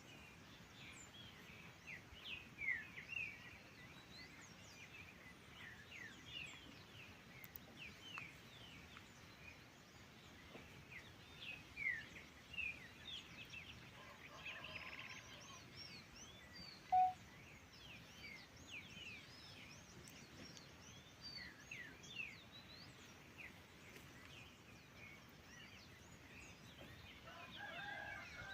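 Faint birdsong from several birds: many short chirps and quick sweeping notes overlapping throughout, with one louder brief low call about two-thirds of the way through.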